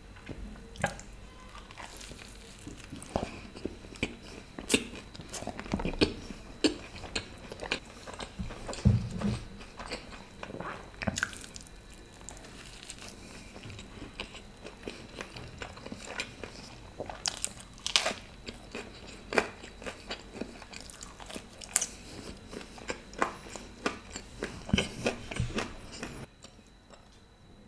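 A person biting and chewing stuffed garlic bread dipped in cheese dip, mouth sounds close to the microphone: irregular sharp crunches and smacks that tail off near the end.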